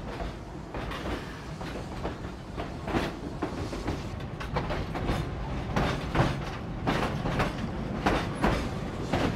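Narrow-gauge steam train's passenger cars rolling, heard aboard: a steady low rumble with wheels clacking irregularly over the rail joints, the clacks coming more often in the second half.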